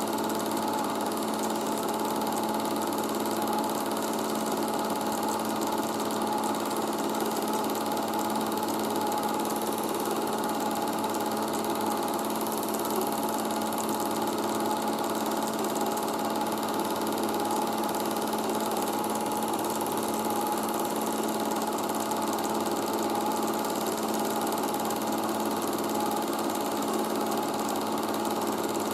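Super 8 film projector running steadily, a constant mechanical whirr and clatter from its motor and film transport with a fixed hum.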